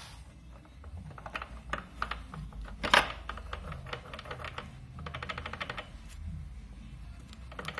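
Steel clutch parts of a Lambretta clicking and clinking as they are fitted by hand into the clutch housing. One sharp clack about three seconds in, and a quick rattle of small ticks around five to six seconds in.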